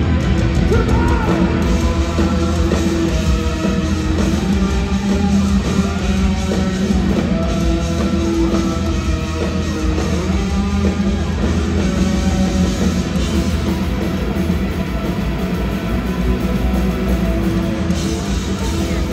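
Punk rock band playing live at a steady loud level: distorted electric guitars over bass and drums.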